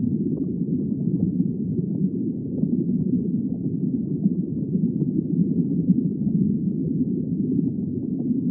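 Steady, muffled underwater water ambience: a dense low rumble with no distinct calls or clicks.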